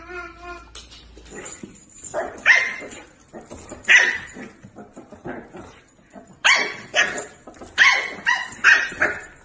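A puppy barking in a run of short, high yaps, about eight of them, coming faster near the end; a husky's brief pitched vocalising is heard at the very start.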